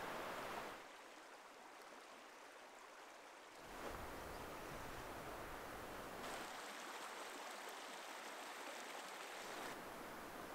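Faint, steady outdoor hiss of moving air or water, with no distinct events; its tone changes abruptly three or four times.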